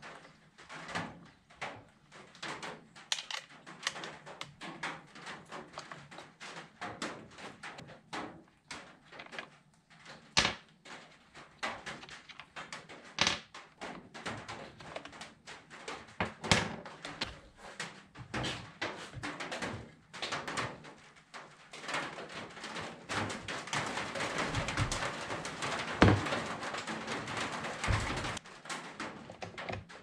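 Chainsaw housing parts, screws and hand tools clicking and knocking on a wooden workbench as the saw is taken apart. A steadier stretch of scraping and rattling comes in the latter part, with one sharp knock in the middle of it.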